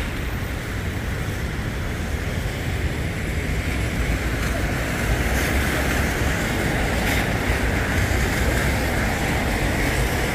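Rainy city street ambience: a steady hiss of rain and of car tyres on wet road, over a low rumble of traffic, growing a little louder about four seconds in.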